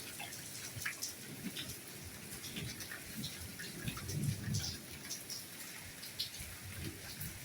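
Soft steady rainfall, with single drops ticking irregularly on a hard surface, and a soft low sound about four seconds in.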